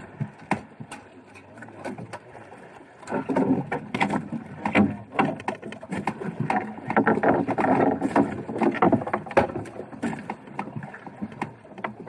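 Heavy nylon handline being hauled in hand over hand on a small fishing boat: a busy run of sharp knocks, scrapes and water sounds that grows louder and denser from about three seconds in.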